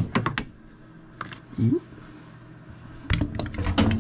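Metal clinking and knocking as a hand wrench works on the bolt and mounting hardware of a snowmobile's center shock. There are a few sharp clinks at the start and a busier run of clinks and dull thuds near the end.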